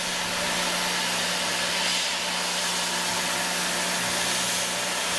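Tormach PCNC 770 CNC mill running a 1/4 inch 90-degree chamfer mill along the edges of an aluminium part. A steady machine hum sits under a constant hiss from the mist coolant nozzle.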